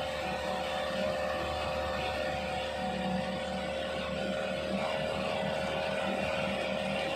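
Mitsubishi 4x4 truck's engine running steadily under load with a steady whine, as its wheel-driven winch slowly winds in the cable to haul the truck out of a deep mud rut.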